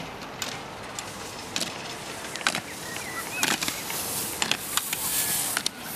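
Skis scraping and clattering over dry-slope brush matting as two slalom racers pass, with scattered sharp clicks and knocks; the hiss of skis sliding grows louder about four and a half seconds in as a skier goes by close.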